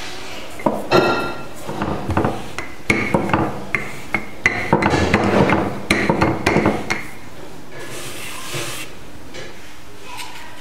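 Wooden rolling pin knocking and rolling over dough on a floured wooden board: a run of sharp wooden clunks and rough rubbing that stops about seven seconds in.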